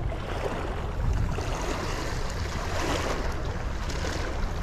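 Wind noise on the microphone over small waves lapping against shoreline rocks, a steady rush with a low rumble.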